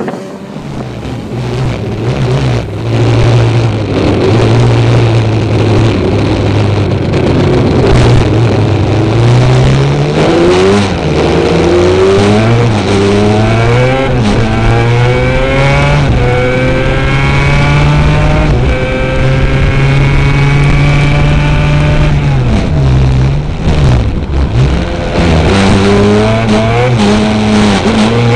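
Yamaha Banshee racing quad's two-stroke twin engine running hard at high revs. Its pitch climbs steadily about a third of the way in, drops and stutters about four-fifths of the way through as the throttle comes off, then picks up again.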